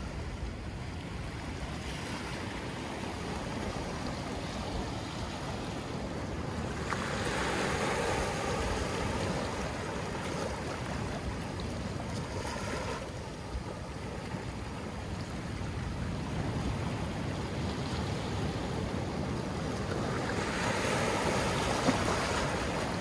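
Small ocean waves lapping and washing in over sand and scattered lava rocks, a steady rushing wash. It swells twice, about seven seconds in and again near the end, as waves run up the shore.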